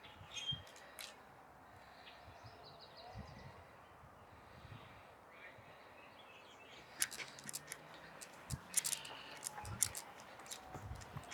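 Faint outdoor street ambience on a windy day: low rumbles of wind on the microphone and a few short bird chirps, then a run of sharp crackling clicks over the last few seconds.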